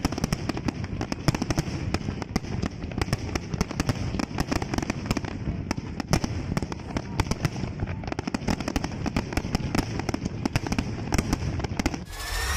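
Aerial fireworks display with many shells bursting at once: a dense, unbroken stream of bangs and crackles. It cuts off abruptly near the end and gives way to electronic music.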